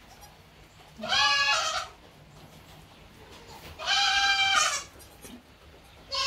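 Goat bleating three times, each call about a second long and a couple of seconds apart, the third starting near the end.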